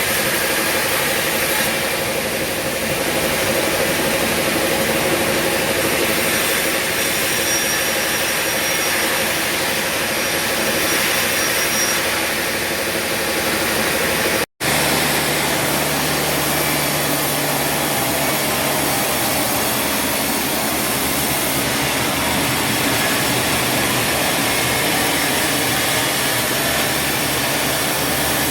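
Sawmill machinery running with a steady, loud mechanical noise. About halfway through it cuts out for an instant and resumes with a steady low hum underneath.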